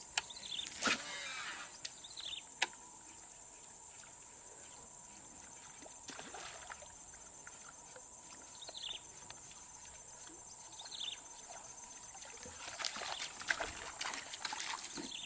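Wetland ambience: a steady high-pitched insect drone with a bird repeating a short falling call every few seconds. There is a sharp knock about a second in, another at about two and a half seconds, and a run of light clicks near the end.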